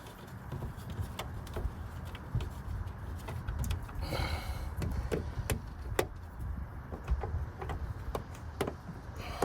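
Scattered clicks and light knocks of car door parts being handled and fitted back together, with a short scraping rustle about four seconds in.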